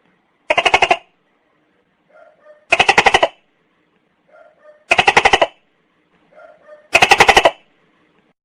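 Tokay gecko calling: four loud rattling calls about two seconds apart, each a quick run of clicking pulses, with a faint softer note just before each of the later ones.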